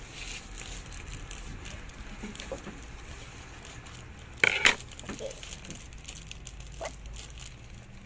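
Plastic shipping pouch crinkling and crackling as it is cut open with scissors and handled, with a louder burst of crackling about four and a half seconds in.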